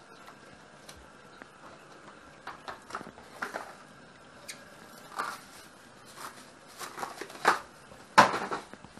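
Kitchen handling noises: a run of light knocks, clicks and rustles as things are picked up and set down. The loudest knock comes about eight seconds in, as a box of plastic wrap is put back on a wire shelf rack.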